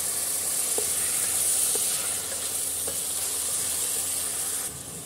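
Mutton, onions and green chilli paste sizzling steadily in hot oil in an aluminium pressure cooker, with a few faint taps. The sizzle drops off abruptly near the end.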